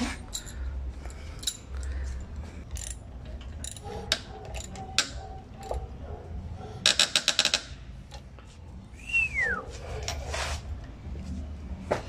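Socket ratchet clicking in quick runs as a motorcycle's fork-clamp bolt is worked with a 16 mm socket, among scattered clinks and knocks of metal tools and parts, over a steady low hum. A brief squeak falls in pitch about nine seconds in.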